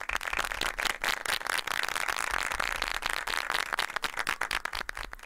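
Audience clapping, a dense patter of many hands that starts and cuts off suddenly.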